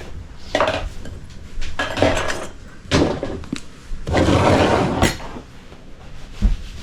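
Dishes and cutlery clattering and clinking as they are handled during kitchen cleanup, in several separate bursts, with a longer rush of clatter about four seconds in.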